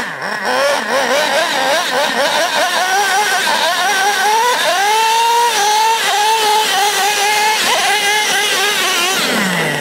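Traxxas Revo RC monster truck's small nitro engine revving in quick blips as the truck spins donuts. About four seconds in it climbs to high revs and holds there, then drops to idle near the end.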